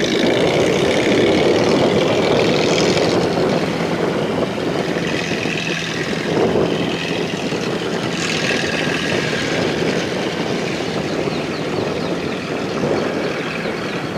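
Rice combine harvester running steadily under load, its engine hum mixed with the rattle and whine of the cutting and threshing machinery, with higher-pitched machine noise swelling and fading a few times.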